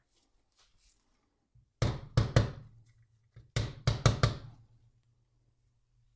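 A small plastic-faced hammer knocking on a 3D-printed plastic support to seat it fully onto the steel guide rails. It lands in two quick bursts, about three sharp knocks followed by about four more.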